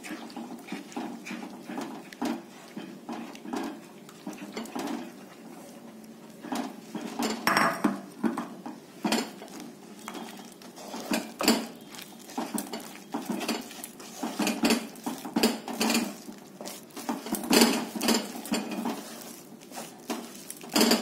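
Wooden spatula stirring and mashing rice flour into hot water in a non-stick kadai, with irregular scrapes and knocks against the pan as the mixture thickens into a stiff dough.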